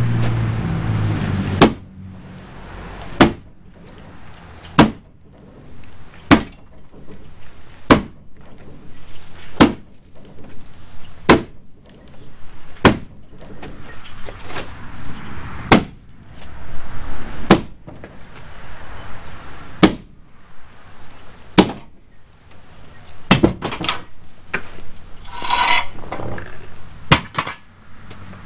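A long-handled lifting jack being worked to raise a wooden chicken coop: sharp metallic clanks at an even pace, about one every second and a half, one per stroke of the handle. A short squeak comes near the end.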